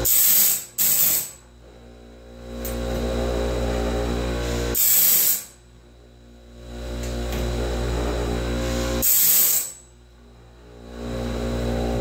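Band-sawmill blade sharpener running with a steady motor hum. Three times, about every four and a half seconds, its grinding wheel is brought down onto a steel band tooth, giving a short hissing grind lasting about a second; the first comes in two quick passes. Each grind is one tooth being sharpened.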